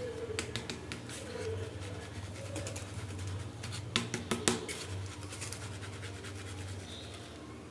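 Flour being sifted in a sieve shaken over a bowl: a scratchy rustle with scattered ticks and taps, and a few louder knocks about four seconds in.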